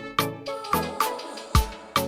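Background music with a steady drum beat and a deep bass hit about a second and a half in.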